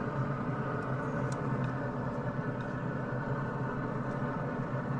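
Steady hum of a Pit Boss Pro Series 1150 pellet grill running, its fan droning evenly, with a few faint light ticks.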